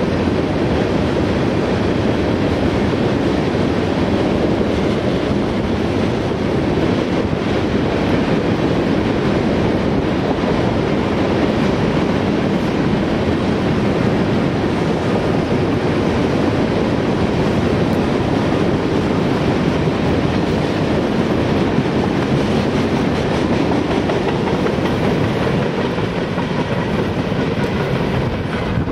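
Freight train cars, tank cars and covered hoppers, rolling past on the track: a steady rumble of steel wheels on rail that holds at an even level throughout.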